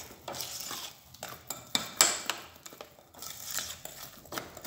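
A spoon stirring thick cake batter in a glass bowl, scraping and clinking against the glass in irregular strokes, with one louder clink about two seconds in.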